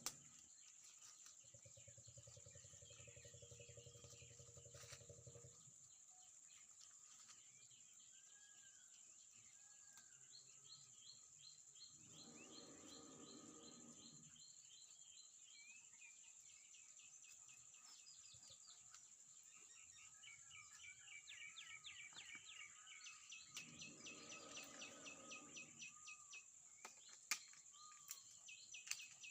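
Faint outdoor ambience: birds calling in quick trills of repeated high chirps over a steady thin high whine, with a faint low hum in the first few seconds.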